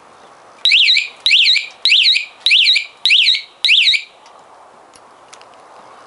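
Aftermarket scooter alarm siren sounding six short warbling blasts, each sweeping quickly up and down in pitch, a little over half a second apart, then stopping.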